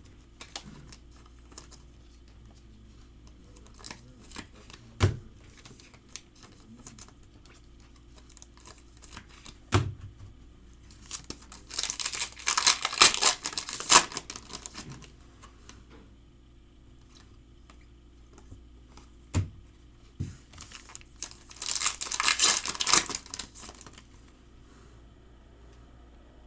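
Trading card pack wrappers being torn open and crinkled, in two stretches about eleven and twenty-one seconds in, with scattered light clicks and taps of cards being handled in between.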